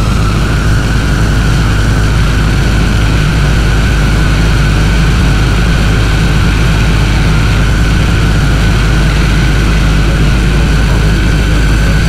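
Dark ambient drone music: a loud, unbroken wall of deep rumble and dense noise like a distant engine, with a thin high tone held steady throughout.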